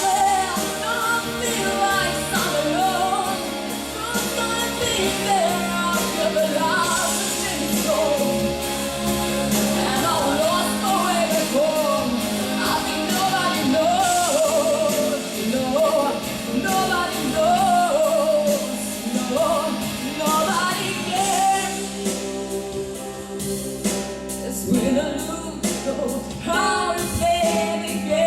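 A young girl singing a slow pop ballad with instrumental accompaniment, her melody bending and ornamented. The accompaniment thins out for a few seconds about two-thirds of the way through.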